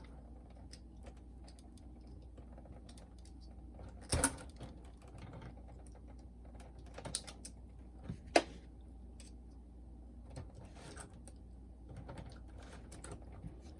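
Small plastic clicks and taps from hands working the retaining clips on a boombox's internal assembly. There is a louder click about four seconds in and another sharp click about eight seconds in.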